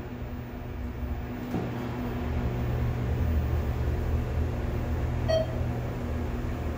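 ThyssenKrupp glass scenic elevator car travelling between floors, its drive giving a steady low hum. A short electronic beep sounds about five seconds in.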